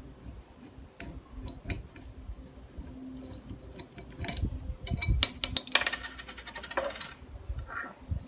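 Blue Yeti microphone being taken off its metal stand by hand: scattered clicks and knocks, with a busier run of metallic clinks and rattles about four to seven seconds in.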